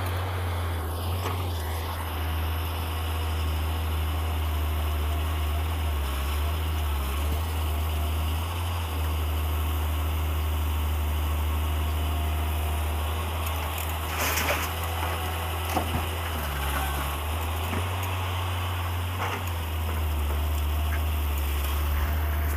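Tata Hitachi crawler excavator working beside a dump truck, its diesel engine running with a steady low drone that rises and falls slightly as the machine swings and digs. There is a short clatter about fourteen seconds in.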